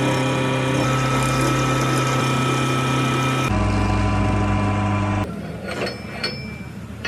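A small engine running steadily, its pitch stepping abruptly about a second in and again near the middle. About five seconds in it gives way to a quieter stretch of light metallic clicks and knocks.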